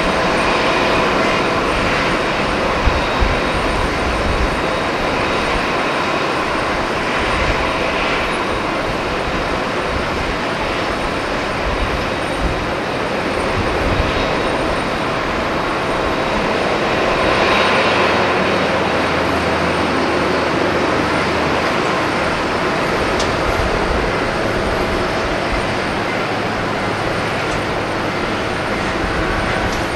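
Boeing 747-400D's four jet engines running at taxi power as the airliner rolls along the taxiway: a steady rush with a high whine, swelling briefly about halfway through.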